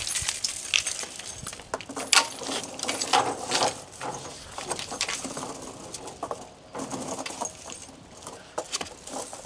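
Steel tire chains clinking and rattling as they are handled and fitted onto a truck tire: irregular metallic clicks and jingles, with several sharper clacks about two and three seconds in.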